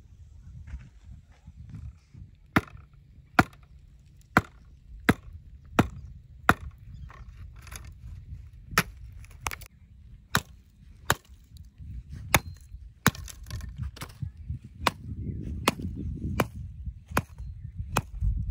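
Dry branch being chopped with a short-handled tool: sharp woody blows starting about two and a half seconds in, roughly one every three-quarters of a second, with a short pause midway.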